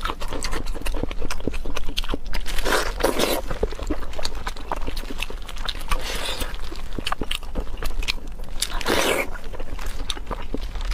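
Close-miked, wet chewing and lip-smacking, with soft, fast clicks and crackles throughout. Mixed in are the squelch and rustle of plastic-gloved hands tearing thick, saucy meat apart, with two louder, longer noisy moments about three and nine seconds in.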